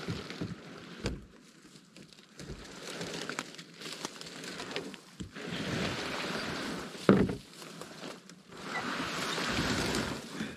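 Rustling of dry brush and sticks that swells and fades in a few long waves, with two dull thumps, one near the start and one about seven seconds in.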